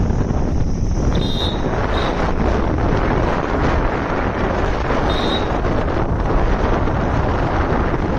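Heavy wind rushing and buffeting over the microphone of a motorcycle on the move, a steady loud roar of noise. Three short high-pitched chirps cut through, about a second, two seconds and five seconds in.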